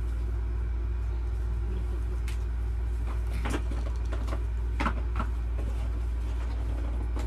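Steady low hum of a running window air conditioner, with a few short knocks and rustles from things being handled in the laptop's cardboard box, the loudest about halfway through.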